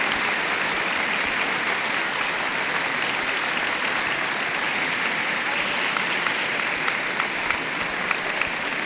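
Audience applauding steadily, thinning toward the end so that single claps stand out.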